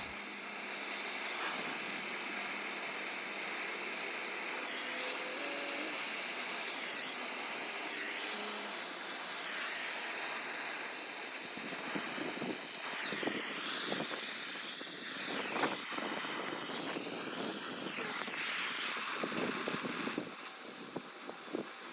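Brazing torch flame hissing steadily while copper refrigerant line joints are brazed, with a few knocks and handling noises in the second half.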